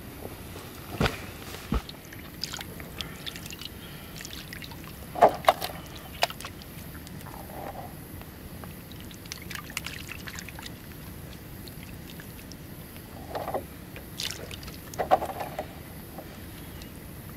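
Scattered knocks, clinks and rustles of camp cookware being handled while cooking over a campfire, with louder clanks about five seconds in and again near the end.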